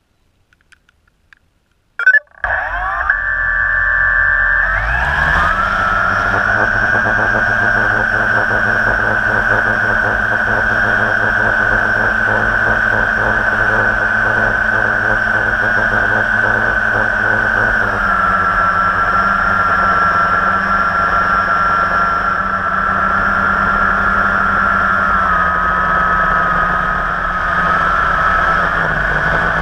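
Blade 350 QX quadcopter's brushless motors and propellers, heard from on board. After a few faint clicks the motors spin up about two seconds in, rising in pitch for takeoff, then hold a loud, steady whine in flight that steps slightly lower in pitch twice.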